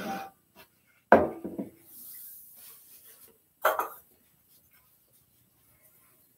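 Handling noises of objects being moved and set down on a hard surface: a sharp knock and short clatter about a second in, a faint rustling hiss, then another brief clatter near four seconds.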